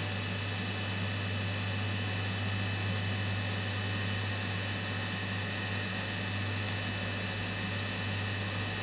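Steady electrical hum with an even hiss, unchanging throughout.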